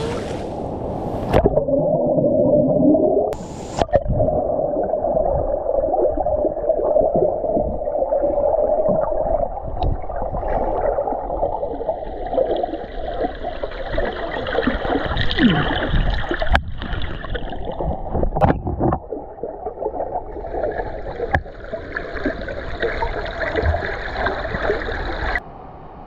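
Water heard from underwater in a deep river pool: muffled gurgling and bubbling, with a few sharp knocks.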